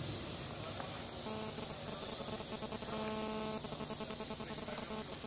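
Crickets singing at dusk: a steady high trill, with a regular chirp repeating about twice a second, over a faint low hum.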